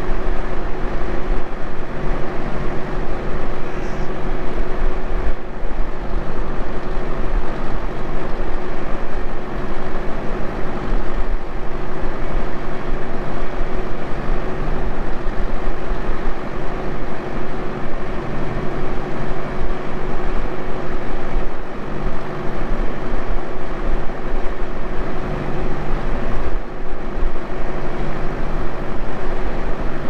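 Tractor engine running steadily under load while pulling a mouldboard plough slowly through the field, a constant drone with a steady whine over it.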